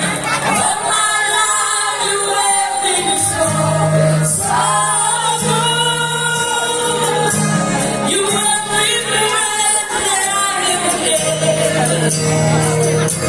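A singer performing a Christian worship song over backing music, the sung melody held and gliding above a steady low accompaniment.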